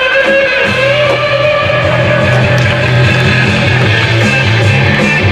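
Rock music with electric guitar, a bass line coming in under it about a second in.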